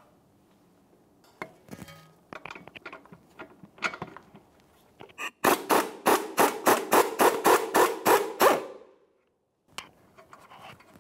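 Ratchet with an 18 mm socket spinning a nut off the lower shock-mount bolt: a run of rapid, even clicking pulses, about four to five a second, for about three seconds, then it stops suddenly. Lighter metal clicks and knocks of the tools being fitted come before it.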